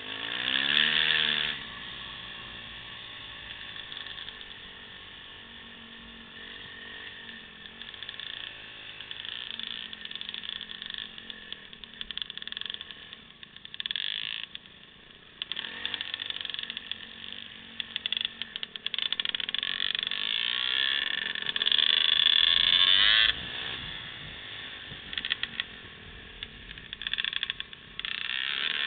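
Dirt bike engine revving and idling: it revs up right at the start, drops to a low putter for several seconds, then revs again in uneven spurts, loudest a little past the middle and again at the end.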